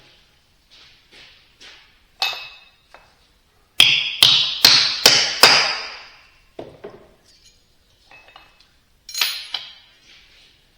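A hammer taps a new shaft seal into a Vickers V45 vane pump housing to seat it. A single knock is followed by a run of five quick ringing metallic taps, about two or three a second, and one more knock near the end.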